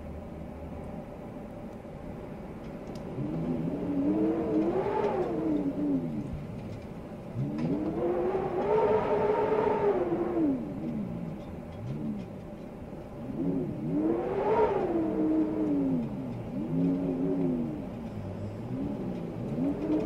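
Blizzard wind howling in gusts over a steady hiss. Each gust is a moaning tone that rises and then falls in pitch. Three long howls come a few seconds apart, starting about three seconds in, with shorter ones between them and toward the end.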